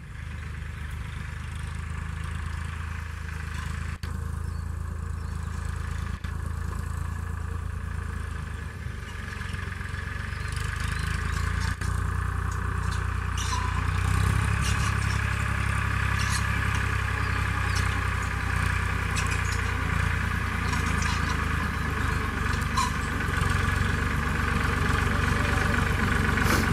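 Powertrac 445 tractor's three-cylinder diesel engine running steadily as the tractor drives closer, growing gradually louder.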